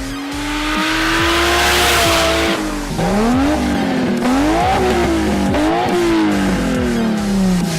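A car engine revving hard, its pitch climbing and dropping sharply several times as if running up through gears, over a heavy electronic bass beat.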